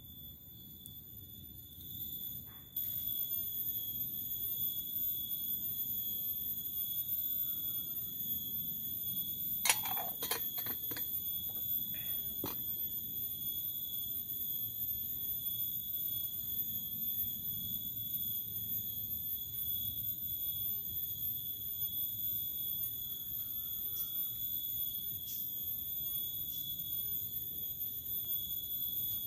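Steady high-pitched insect drone, one unwavering tone with fainter overtones above it, getting louder about three seconds in. A few sharp clicks sound around a third of the way through.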